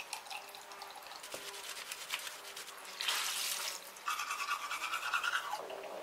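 Quick scrubbing and rubbing with a wet washcloth at a bathroom sink, then a loud splash of water about three seconds in and a further stretch of running, splashing water from about four seconds.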